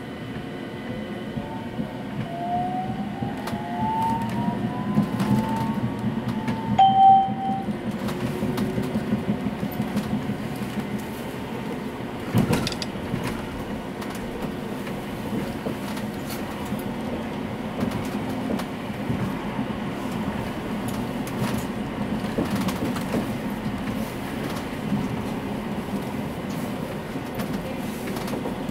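Tram running on rails from inside the car, a steady rumble of wheels on track, with the electric traction motors whining and rising in pitch as it picks up speed over the first several seconds. A short steady electronic tone sounds about seven seconds in, the loudest moment, and a single clunk comes about twelve seconds in.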